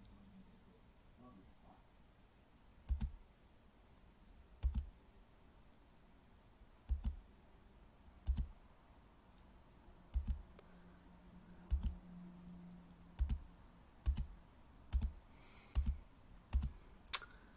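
Faint, irregular clicks of computer controls on a desk, each with a low thud, about one every one to two seconds, picked up by the computer's microphone. A sharper click near the end is the loudest.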